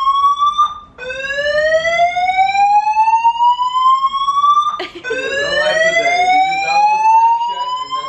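Apartment building fire alarm sounding loudly: a rising tone that climbs for about four seconds, breaks off, and starts again from low, about a second in and again about five seconds in. It is a false alarm caused by a fault in the building's alarm system.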